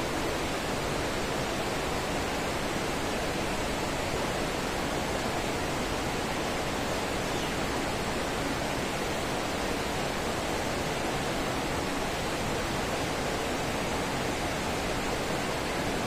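Steady rushing of a stream swollen with afternoon rainwater, an even wash of water noise that doesn't change.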